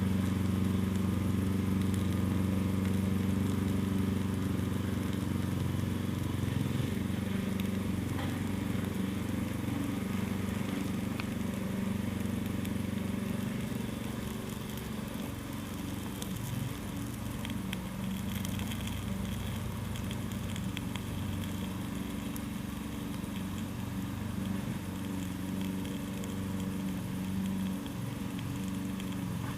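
Burning prawn crackers (krupuk) crackling faintly with scattered small pops, over a steady low engine-like hum that dominates the sound.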